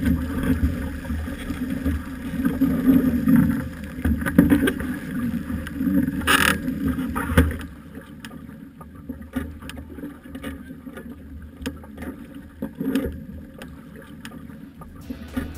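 Water sloshing and splashing around the hulls and trampoline of a capsized catamaran, close to the camera, with wind buffeting the microphone. After about seven and a half seconds it drops to quieter lapping with scattered small splashes and drips.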